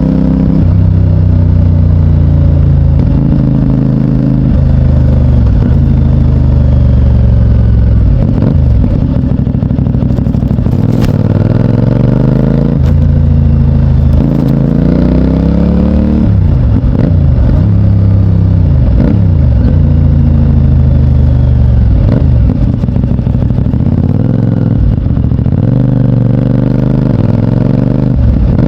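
2024 CFMOTO 450NK parallel-twin engine through its stock exhaust under riding load. The engine note climbs as it accelerates, drops sharply at each gear change, and does this repeatedly, with stretches of steadier running between.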